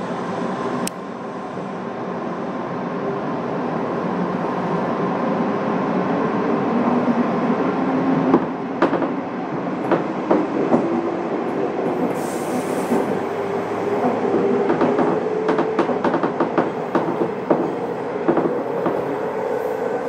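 Inside a JR West 201 series electric train under way: steady running noise with a hum that slowly rises in pitch as it grows louder. From about the middle on, the wheels click sharply over the rail joints again and again.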